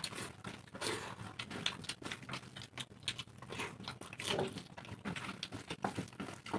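Eating sounds of rice and dal eaten by hand: fingers squishing and mixing wet rice on steel plates and mouths chewing and smacking, in quick irregular clicks.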